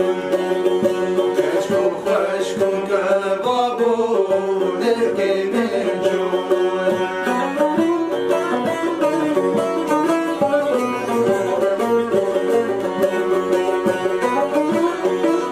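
Kurdish folk music played on a long-necked saz and a metal-bodied, banjo-like lute, the two plucked strings running a quick melody together.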